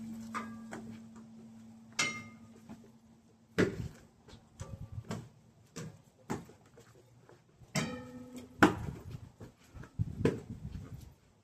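Irregular knocks and taps on hard objects, a few with a short ringing tone as something is struck, about two seconds in and again near eight seconds.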